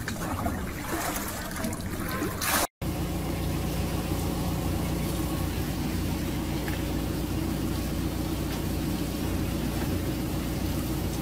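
Water sloshing and splashing as a bucket is dipped and emptied. After a short break, a truck engine runs with a steady low hum while a stream of liquid gushes and splatters onto the pavement.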